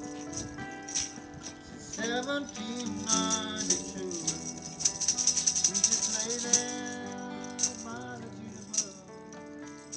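Instrumental passage of a folk song: acoustic and electric guitars playing, with lead notes that bend and slide. A shaker rattles in quick, even strokes and is loudest about halfway through.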